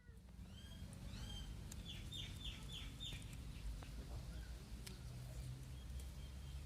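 Small birds chirping, with a quick run of about five falling chirps about two seconds in, over a steady low rumble.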